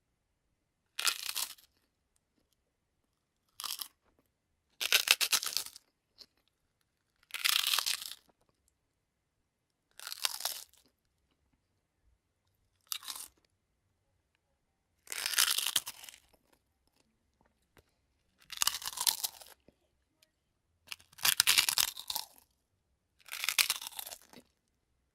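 A series of about ten separate bites into crisp prawn crackers, each a loud crunch lasting under a second, with silence between them.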